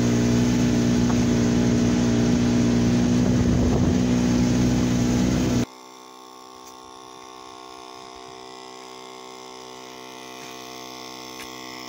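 A loud, steady engine drone cuts off abruptly a little under halfway through. A much quieter, steady engine sound follows: the parked 2011 Polaris RZR S 800 side-by-side idling.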